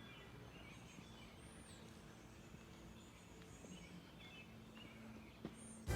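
Faint outdoor background with a few bird chirps, two short high ones about a second and a half in and near the end.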